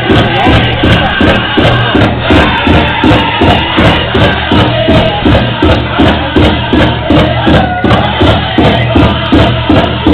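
Pow-wow drum group: a big drum struck in a steady, even beat, about three strokes a second, with singers' voices wavering over it.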